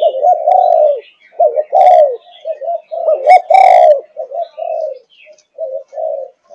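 Young spotted dove of the Malaysian 'thúc gù' cooing line, cooing: clusters of short, rapid coo notes with brief pauses between them. The notes are loudest and most run together in the middle, then shorter and quieter toward the end.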